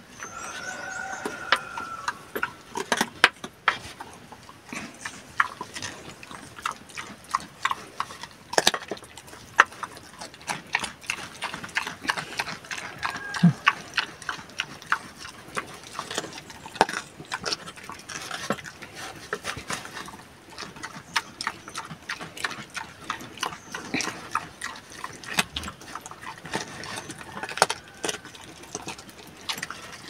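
Pig eating vegetable scraps from a metal bucket: steady, irregular chomping and smacking with many short crunching clicks.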